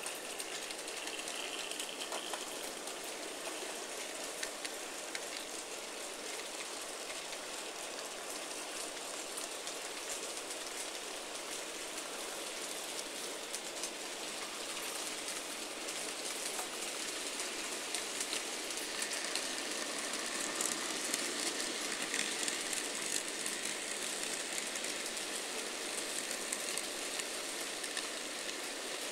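N gauge model trains running on the layout: a steady rattling hiss of small wheels on the track. It grows louder from about halfway as a train passes close by, and a thin steady whine joins in about two-thirds of the way through.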